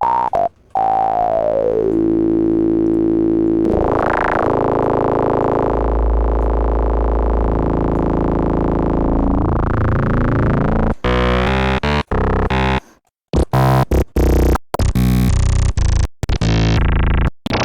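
Synthesizer built from phase-modulated formant oscillators: noisy, spitty tones. One long held tone whose resonant peak glides down, then sweeps up and down over a deep bass and rises again, followed by a run of short, choppy notes starting and stopping.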